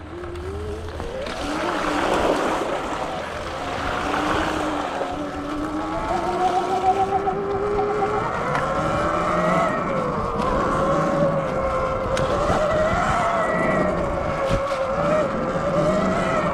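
Sur Ron Light Bee X electric dirt bike's motor and drivetrain whining, the pitch rising and falling as speed changes, over a rush of wind and tyre noise on the dirt trail.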